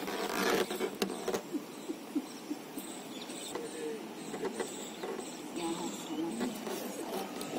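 Plastic Volkswagen Polo tail-light assembly being handled: a rustle with a few sharp clicks in the first second or so, then only faint handling noise.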